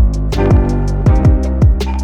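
Background music: an instrumental track with sustained pitched notes over a steady beat of bass-drum and cymbal hits.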